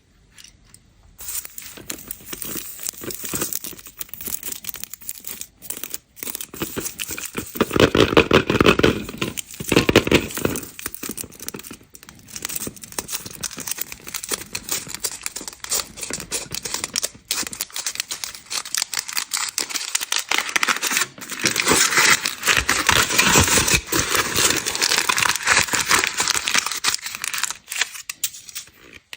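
Candy wrappers crinkling and tearing as chocolate eggs and sweets are unwrapped by hand close to the microphone, with louder stretches of crackling about a third of the way in and again near the end.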